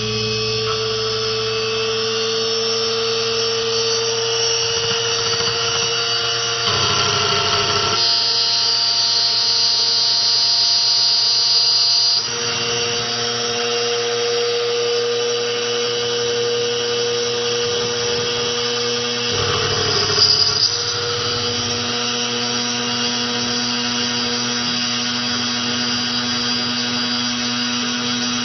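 SEC-E9 CNC key cutting machine running its spindle motor at its lowest speed with a steady whine while the cutter mills the cuts into a thin double-sided key blade. The pitch and loudness shift several times as the cutter moves along the blade. It is louder for a few seconds about a quarter of the way in, with a short louder grind about two-thirds of the way through.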